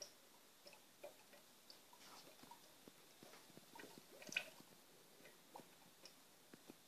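Near silence, broken by faint, irregular small clicks and ticks, with a slightly louder cluster about four seconds in.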